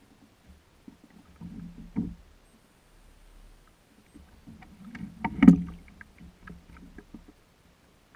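Knocks and clatter on a plastic kayak's hull. There are a couple of soft thumps about two seconds in, then a cluster of knocks with scattered small clicks, the loudest knock about five and a half seconds in.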